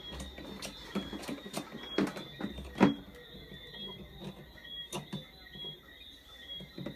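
Irregular clicks and knocks, like handling of small hard parts or tools, with the loudest knock about three seconds in, over a faint steady high tone.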